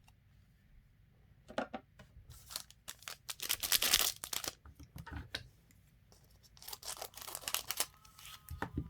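A trading-card pack wrapper being torn open and crinkled, in irregular scratchy bursts with a short lull in the middle.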